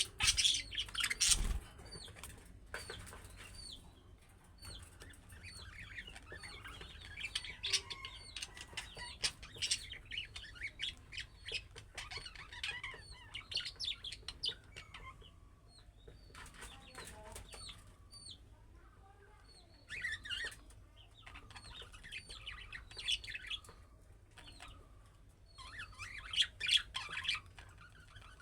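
Budgerigars chirping and warbling in fast chattering spells, with short repeated chirps in the quieter gaps between them.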